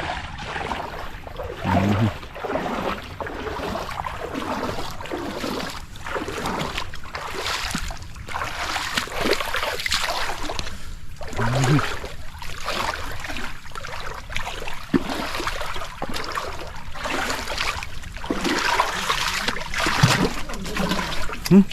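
Water trickling and splashing, a steady rush that swells and fades unevenly.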